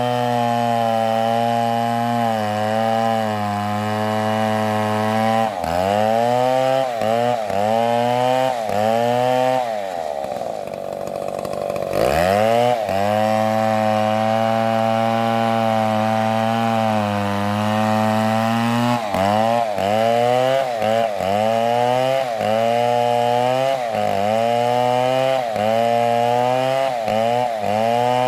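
Stihl MS720 two-stroke chainsaw cutting into a tree at high revs, its pitch dipping again and again as the chain loads in the wood and then recovering. About ten seconds in it falls back toward idle for a couple of seconds, then revs up again.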